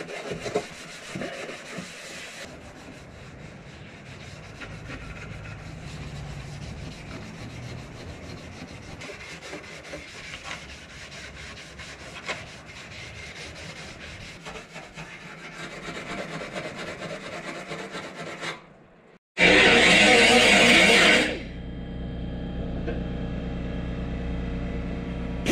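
Green Scotch-Brite scuff pad rubbed by hand over the painted sheet metal of a Nissan S14's engine bay, a steady scratchy rubbing that scuffs the paint ready for primer. Near the end, after a brief break, a hose-fed pneumatic hand tool runs loudly for about two seconds, then a quieter steady sound follows.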